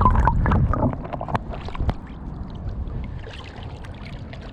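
Shallow seawater sloshing and swirling as hands dig through wet sand for cockles. It is loudest in about the first second, with a few sharp clicks, then settles to a quieter wash with scattered ticks.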